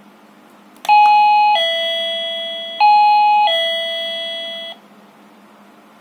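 Electronic ding-dong chime from a battery-powered RF wireless doorbell's receiver, set off by a press of its push button to test it. The high-then-low two-note tune plays twice in a row, then cuts off sharply.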